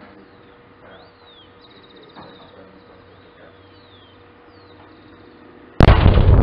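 Tungurahua volcano's explosion: near the end, a sudden cannon-shot bang from the blast and its shock wave, which runs straight on into a loud, low rumble.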